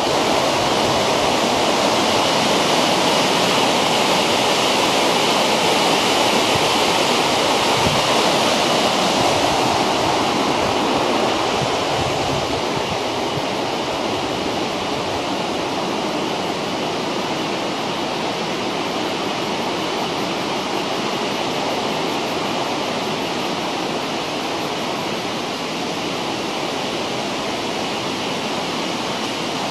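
Steady rush of a mountain stream and its falls in the gorge below. It is somewhat louder for the first ten seconds or so, then a little quieter.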